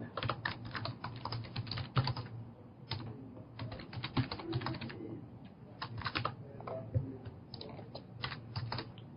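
Typing on a computer keyboard: irregular runs of quick keystrokes with short pauses between them, over a low steady hum.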